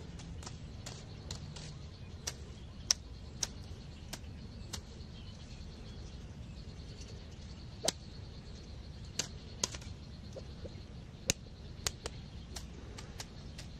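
Outdoor ambience: a steady low rumble with about fifteen sharp, irregularly spaced clicks, the loudest about three, eight and eleven seconds in, and a faint high steady tone in the middle and later part.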